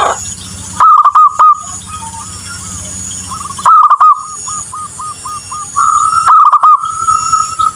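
Zebra doves cooing: loud bursts of quick, hooked notes, one burst about a second in, another around four seconds, and a longer run in the second half that ends in a held note.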